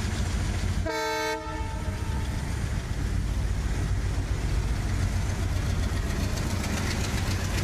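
Horn of a double-headed Indian Railways Alco WDM diesel train, one short blast about a second in. After it, the locomotives' diesel engines and the wheels on the track make a steady low rumble as the train approaches.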